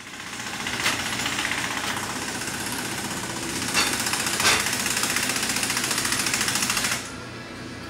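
A workshop power tool hammering rapidly and steadily, with a few sharper knocks, easing off about seven seconds in.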